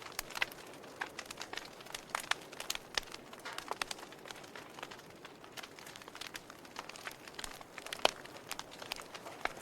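Wood fire crackling in a fireplace: irregular snaps and pops over a low hiss, with one sharper pop about eight seconds in.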